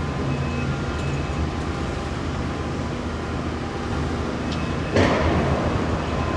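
Traffic noise: a steady engine hum, then a sudden louder rush of noise about five seconds in as a vehicle passes close by.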